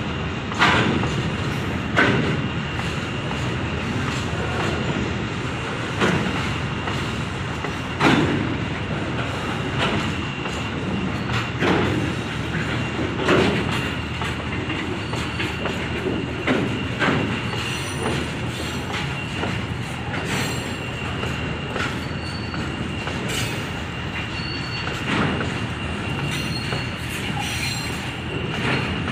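Freight wagons rolling past on the rails, with a steady rumble and sharp wheel knocks over the rail joints every one to two seconds. A thin steady high-pitched tone runs underneath.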